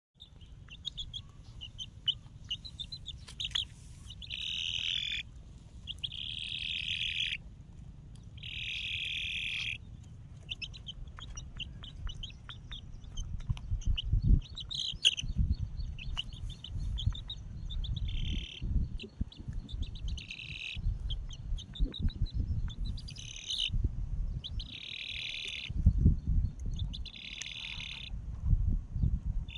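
Featherless nestling bird calling: shrill cries about a second long, repeated every couple of seconds, with runs of quick short chirps between them. A low rumble sits underneath.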